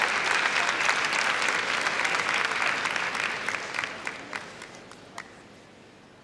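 Large arena crowd applauding, the clapping fading over the second half to a few scattered claps and then stopping.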